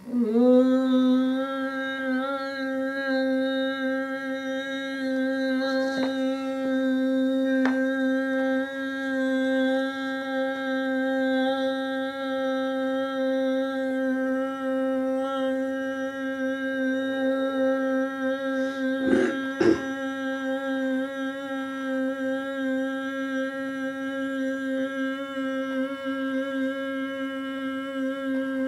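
A voice humming one long, steady note that starts abruptly and holds without a break for a breath. A few faint taps and a louder double knock come about two-thirds of the way in.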